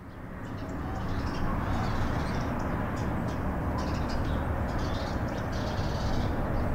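Birds chirping in short, repeated calls over a steady low rumble, all fading in from silence over the first second or so.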